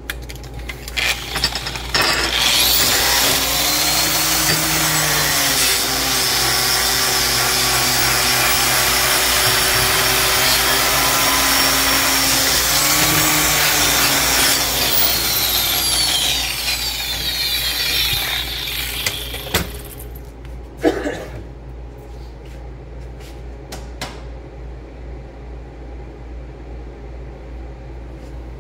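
Electric angle grinder starting up and grinding a 1/4-inch steel plate clean, its motor pitch dipping as the disc is pressed into the steel. After about fourteen seconds it spins down with a falling whine, and a couple of sharp knocks follow as it is set down.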